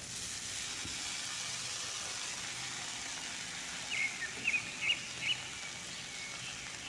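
Chopped yardlong beans and potato pieces sizzling in hot oil in a kadhai, a steady frying hiss that begins as they go into the pan. Four or five short high chirps come between about four and five seconds in.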